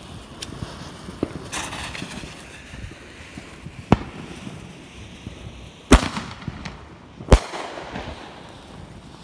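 Consumer fireworks going off: ground fountains hissing as they spray sparks, with sharp firework bangs. Three loud bangs come about four, six and seven and a half seconds in, with smaller pops between them.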